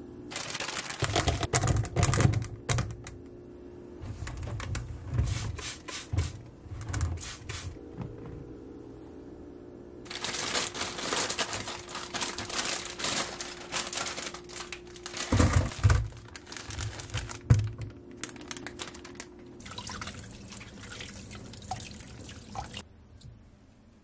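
Kitchen tap water running in several spurts onto vegetables in a stainless-steel colander over a steel sink, with low knocks of the produce and colander being handled between the spurts.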